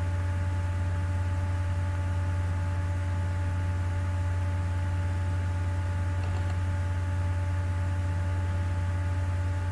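Steady low electrical hum with thin higher tones over a faint even hiss, holding constant without change.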